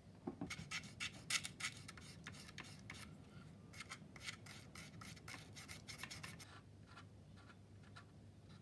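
A round-bladed knife scraping along a protruding styrene strip on a plastic model fuselage to smooth it flush. It makes faint, quick, short strokes, about three or four a second, that thin out about two-thirds of the way through.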